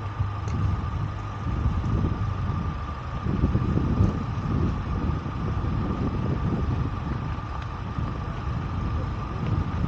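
Motor vehicle engine running at low speed: a low, uneven rumble with a steady thin whine above it.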